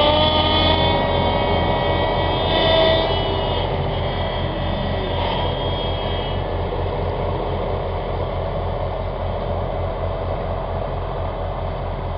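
John Deere 6930 tractor's six-cylinder diesel engine running under load as it pulls a Kverneland plough through the soil, with a whine over the first few seconds, slowly fading as the tractor draws away.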